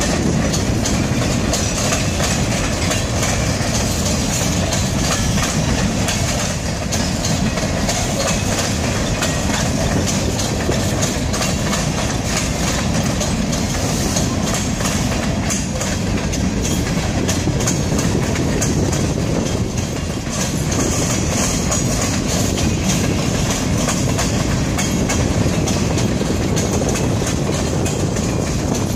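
Freight train of boxcars rolling past, their steel wheels clicking steadily over the rail joints.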